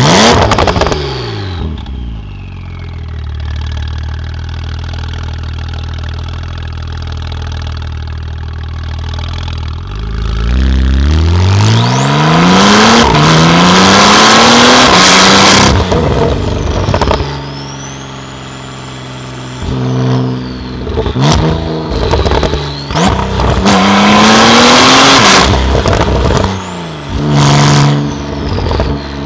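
Twin-turbo flat-six of a 2017 Porsche 911 Carrera (991.2) through a titanium exhaust, heard from inside the cabin. A throttle blip comes at the start, then several seconds of steady low running. From about ten seconds in it accelerates hard, the pitch climbing through gear changes, and two shorter bursts of acceleration follow later.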